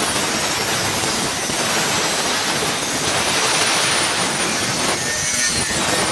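Angle grinder with a cut-off disc cutting into a flat bar of truck leaf-spring steel: a loud, steady high-speed whine and grinding hiss of the abrasive disc biting metal.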